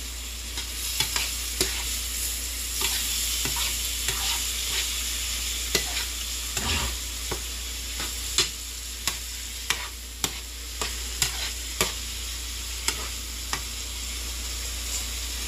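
Shrimp sizzling in a frying pan with sweet soy sauce, stirred with a utensil that clicks and scrapes against the pan every second or so over a steady frying hiss.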